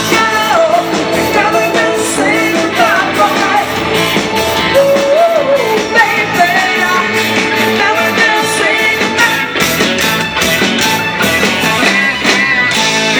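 Live band playing amplified rock-style music with a singer, guitar and a steady drum beat.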